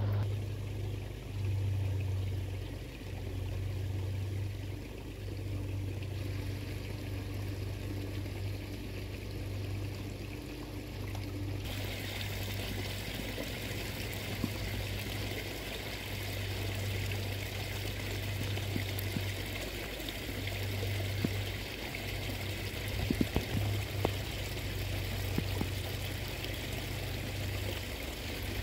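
Water trickling and splashing steadily into a garden pond, coming in clearly from about a third of the way in, over a low steady hum.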